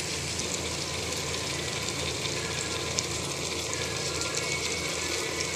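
Steady sizzle of hot oil and fried onions in a pressure-cooker pot beneath freshly added minced mutton, tomatoes and spices, with one light tap about three seconds in.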